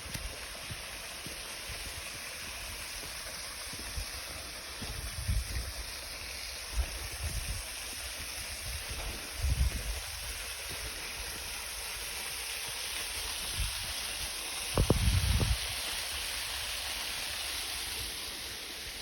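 Steady hiss of falling water from a waterfall running at low flow. A few short low thumps on the microphone, the loudest about fifteen seconds in.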